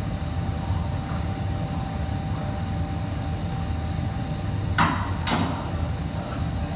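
Two sharp clanks of metal kitchenware, about half a second apart, some five seconds in, over a steady low machine hum.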